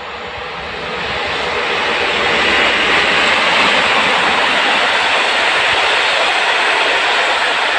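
Passenger train hauled by an EU07 electric locomotive passing on the near track: the steady rumble and hiss of wheels on rails grows louder over the first few seconds, then holds as the coaches roll by.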